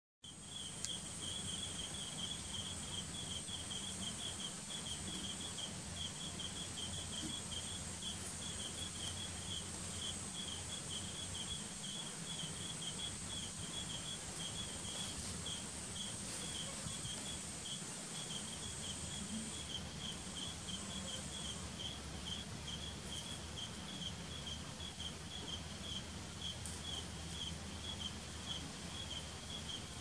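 Outdoor insect chorus: a cricket-like insect repeats a short high chirp a few times a second, steady throughout. A fainter, higher continuous buzz from another insect stops about two-thirds of the way in, over a low background rumble.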